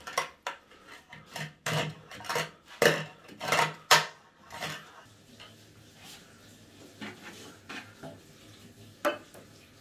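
Metal clinks and scrapes of a tool working in a stainless steel bathroom floor drain, a quick run of them in the first half, then quieter, with one last sharp clink near the end.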